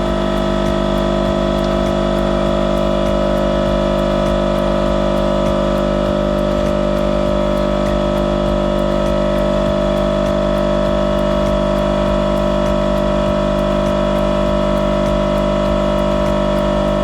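An electric power tool's motor running at a steady speed, the kind of tool used to cut angle iron, with an unchanging hum of several steady tones.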